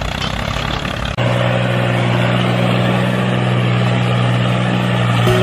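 Tractor engine running steadily with a low, even drone. About a second in it cuts abruptly from a rougher rumble to a steadier, deeper hum.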